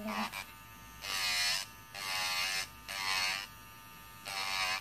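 Kupa Manipro electric nail drill, its spinning bit pressed against a fingernail in four short passes of about half a second to a second each. Each pass brings a whine whose pitch bends slightly, with a quieter hum between passes.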